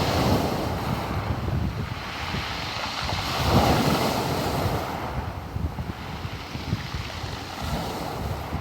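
Black Sea surf: waves washing and breaking on the shore, with wind buffeting the microphone. One wave surges loudest about three and a half seconds in, then the wash slowly subsides.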